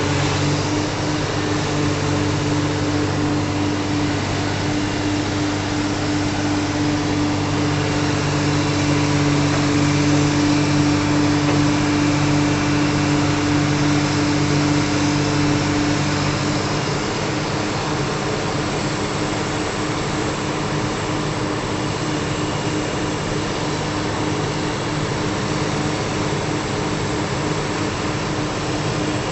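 An engine running steadily under a constant mechanical drone; its low hum eases somewhat about halfway through while the noise carries on.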